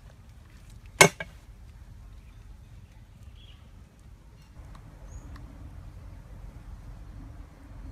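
A meat cleaver chopping down onto a wooden cutting board: one sharp chop about a second in, followed at once by a lighter knock, then only a few faint taps.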